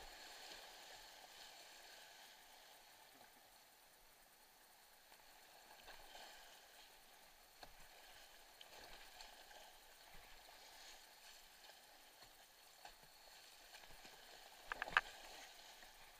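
Faint rush of flooded creek water with intermittent kayak paddle splashes, and one sharp knock near the end.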